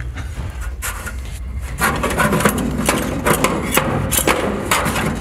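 A handheld power saw cutting, its blade clattering and scraping irregularly against the material; the cutting gets louder and busier about two seconds in.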